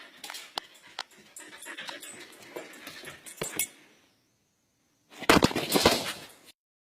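Dog panting, with scattered sharp clicks and scuffs for the first three and a half seconds. After a short lull comes about a second of loud, noisy rustling, and then the sound cuts off.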